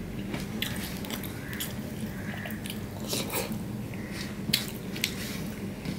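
A person eating rice and lentil dal by hand, with wet chewing and lip-smacking and fingers squishing the soft rice on the plate: irregular small smacks and clicks. A steady low hum runs underneath.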